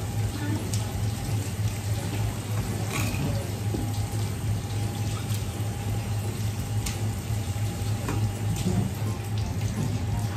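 Water running steadily from a tap into a sink over a steady low hum, with a few light knocks.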